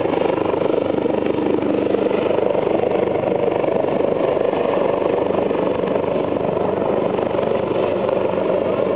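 Helicopter in flight: a steady noise from its rotor and turbine engine, holding even throughout.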